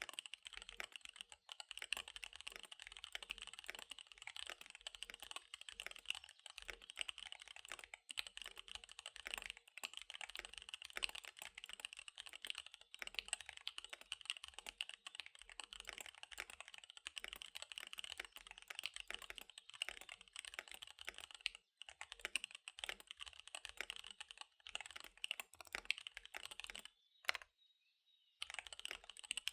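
Fast, continuous typing on a KBD75 V3 mechanical keyboard with SP-Star Dark Magic Girl tactile switches and DSA keycaps: a dense stream of rapid key clacks, with a brief pause near the end before the typing resumes.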